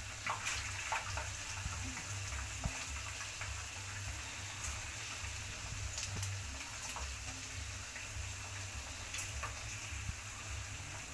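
A pan of masala sauce sizzling steadily on a gas stove as fried potato chips are tipped into it, with scattered light clicks and taps from the chips and utensils.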